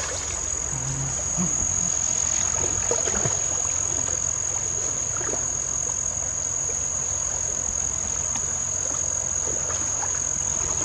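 Insects droning in one steady, unbroken high-pitched tone, with scattered small clicks and a low steady rumble underneath.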